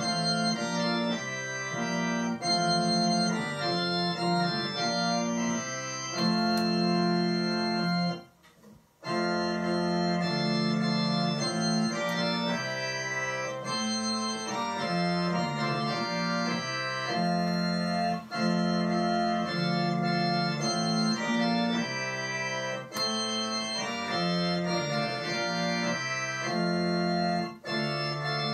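Organ playing a hymn in sustained chords, with a short pause between phrases about eight seconds in.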